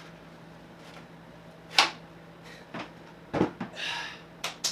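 Knocks and clunks of a metal machine frame being lifted down and set on the floor: one sharp knock about two seconds in, then several thuds and a rustling scrape near the end, over a low steady hum.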